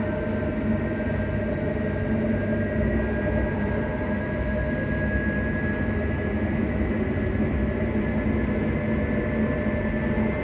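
Class 334 electric multiple unit's traction motors, heard from inside the passenger carriage while the train runs: a steady hum with high whines, one rising slowly in pitch, over the rumble of wheels on track.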